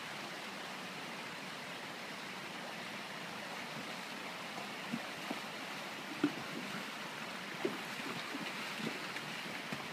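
Steady rushing of a shallow woodland stream, with a few short splashes and knocks from about five seconds in as a horse's hooves wade through the water over the stones.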